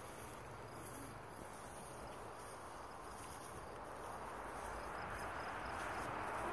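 Faint, steady outdoor background noise that grows louder near the end.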